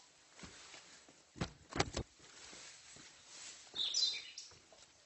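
Footsteps on a steep forest trail, a few scuffing steps about a second and a half in, with a short high chirp near the end.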